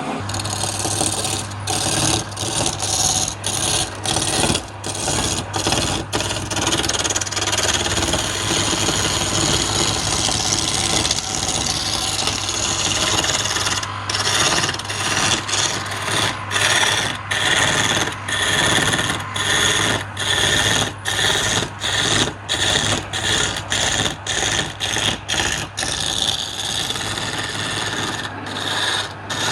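Wood lathe running with a steady low hum while a turning tool cuts the spinning wood, a loud scraping noise broken by many short pauses as the tool is lifted and set again.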